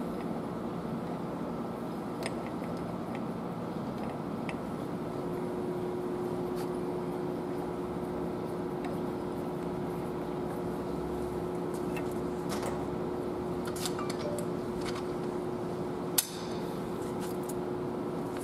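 Faint metal clinks and taps as an idler gear and its bolts are fitted by hand into the engine's timing gear housing, with one sharper click near the end, over a steady background hum.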